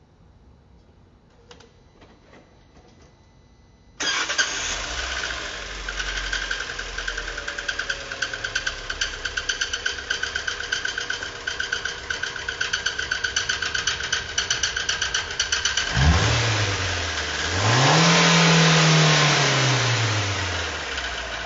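Fiat Fire Evo engine in a 2018 Fiat Uno catches about four seconds in and idles with a rapid, even tapping knock. Near the end it is revved twice, briefly and then longer, the pitch rising and falling each time. The knock is a strange engine noise whose cause is not yet known, and it is the fault that has the engine coming apart.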